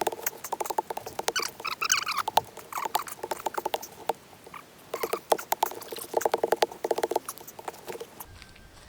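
Digging in soil around a young orange tree's roots: bursts of rapid scraping and scratching, with many sharp clicks of grit and stones. It is deep, hard going.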